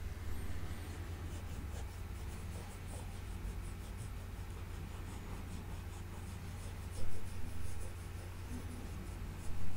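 Cotton swab wet with varnish solvent rubbing in short repeated strokes over the paint surface of an old oil painting, a faint dry scratching, as the discoloured varnish is cleaned off.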